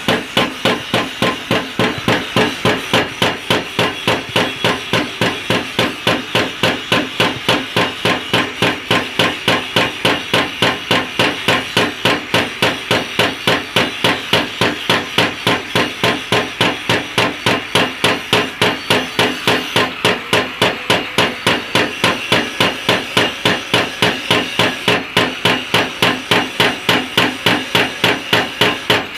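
Mechanical power hammer striking in a steady, even rhythm of about three blows a second.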